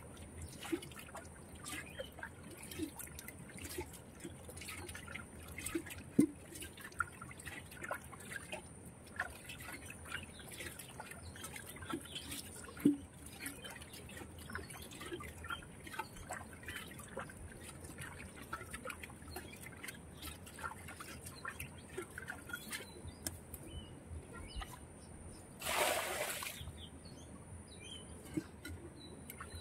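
Muddy water trickling and dripping as hands scoop mud and water from a shallow hole, with many small wet splashes. A louder splash of about a second comes near the end, when a metal bowl is dipped into the water.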